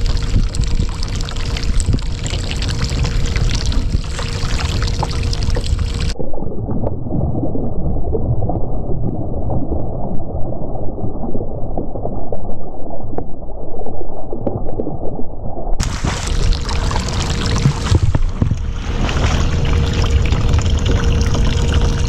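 Loud, continuous water sloshing against a kayak hull, mixed with wind on the microphone. About six seconds in the sound turns abruptly muffled, as if cut off above the low end, and it opens up again about ten seconds later.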